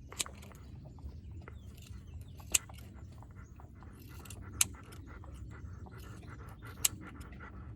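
Hair being cut from a dog's long coat: four sharp snips about two seconds apart, with fainter clicks between them, over a low steady rumble.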